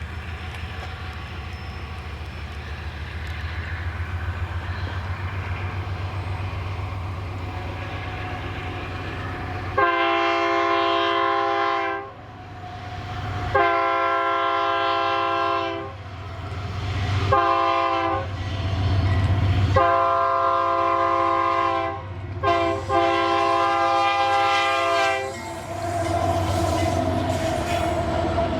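Diesel freight locomotive approaching with a steady low engine rumble, then sounding its multi-tone air horn five times: long, long, short, long, long. The rumble of the train returns after the last blast.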